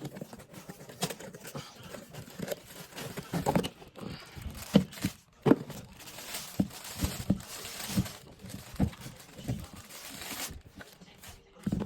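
Packaging being torn open and crinkled, with irregular knocks and clunks from handling the box.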